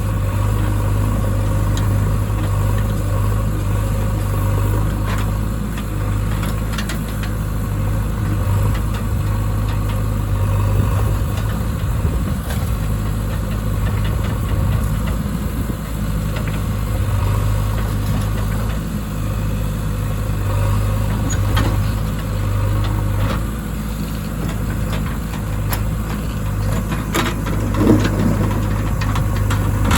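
Diesel engine running steadily at a constant, even pitch, as at a backhoe loading mud into a truck, with a few scattered light knocks and a brief clank near the end.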